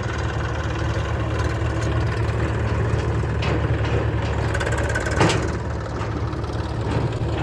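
Heavy diesel engine idling steadily, with a few brief metallic clanks about three and a half and five seconds in.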